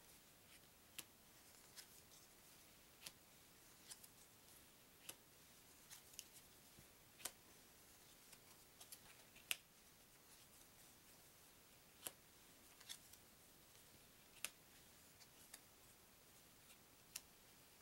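Trivia cards being flicked off a small deck one at a time: light, sharp card snaps at irregular intervals, roughly one a second.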